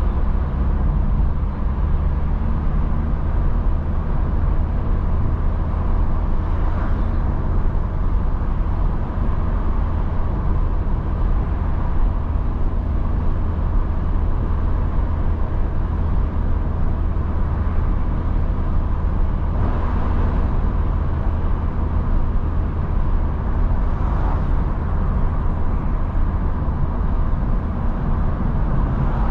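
Cabin sound of a 2010 Mazda MX-5 NC with the 1.8-litre naturally aspirated four-cylinder petrol engine cruising at a steady, light throttle: a low, even engine drone mixed with tyre and road noise.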